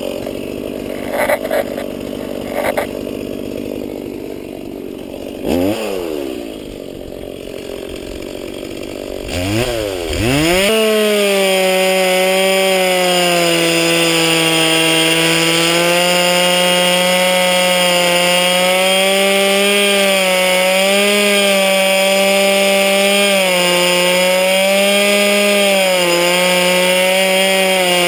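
Stihl MS170 two-stroke chainsaw running low with a few knocks, revved briefly twice, then held at full throttle from about eleven seconds in, its pitch dipping and recovering slightly as it cuts into the tree.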